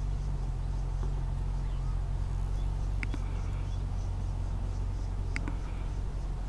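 Steady low mechanical hum like an idling engine, with two short high chirps about two and a half seconds apart.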